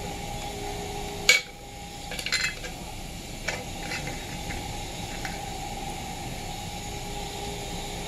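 Small clicks and rattles of a coffee maker's replacement thermostat and its metal mounting clip being handled and fitted into place, with one sharp click about a second in and lighter clicks after it. A steady faint hum sits underneath.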